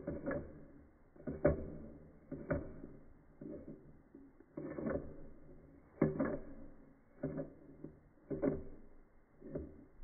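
A pet rat lapping water in slowed-down sound: each lick comes as a low, drawn-out wet click, about one a second.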